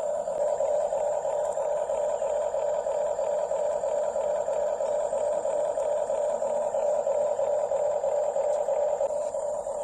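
Small electric motor and plastic gearbox of a radio-controlled model construction vehicle running steadily, a continuous whirring grind with a faint high whine above it.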